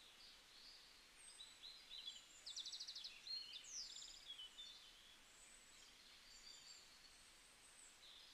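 Faint birdsong over near silence: scattered high chirps, with two quick trills about two and a half to four seconds in.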